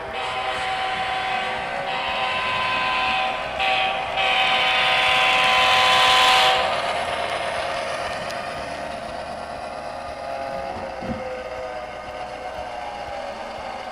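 Model diesel locomotive's sound-system horn blowing, two long blasts with a short break about four seconds in, the second stopping about six and a half seconds in. The locomotive's diesel engine sound then runs on steadily.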